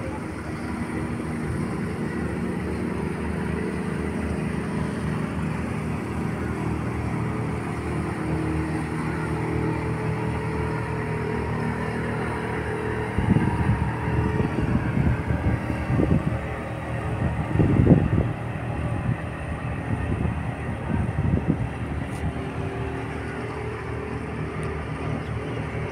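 Boat engine running steadily with a low hum; from about halfway through, irregular louder rushes of noise come and go over it.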